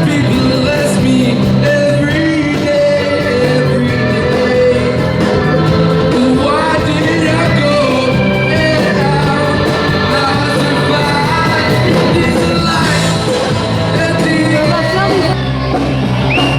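Live rock band playing, with singing over guitar, bass and drums.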